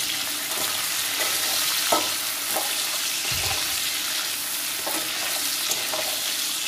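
Sliced onions sizzling in hot oil in a steel kadhai just after going in, stirred with a metal spatula that scrapes and taps against the pan now and then.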